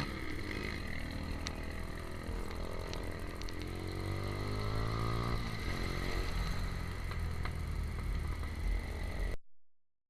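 Small-displacement motorcycle engine running under way, its pitch dropping and then climbing again with speed. The sound cuts off abruptly about nine seconds in.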